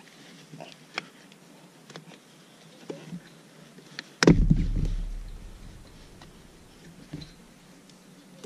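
Handling noise as an aluminum pedal cover is pushed onto a car's brake pedal: light scattered clicks and rubbing, with one loud thump about four seconds in whose low boom dies away over a second or two.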